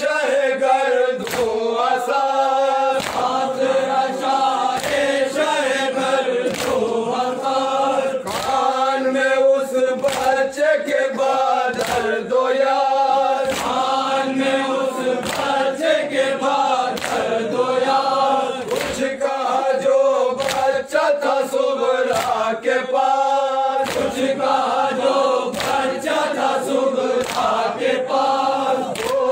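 A group of men chanting an Urdu nauha (mourning lament) together, led over a microphone, with a steady beat of chest-beating (matam) slaps under the singing.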